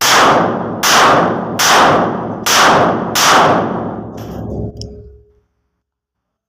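Five shots fired in steady succession from a Pakistani-made .30 bore (7.62×25 mm Tokarev) pistol, about 0.8 seconds apart, each with a trailing echo. This is a test-fire of the newly made pistol.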